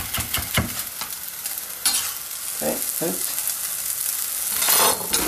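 Three quick knife cuts through red chili on a wooden chopping board. Then a steady sizzling hiss of cooked basmati rice and chili strips heating in a dry saucepan, with a few knocks from the pan.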